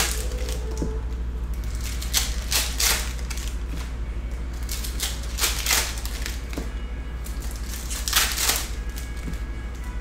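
Trading-card pack wrappers being torn open and crinkled, in short pairs of bursts about every three seconds, with a steady low hum underneath.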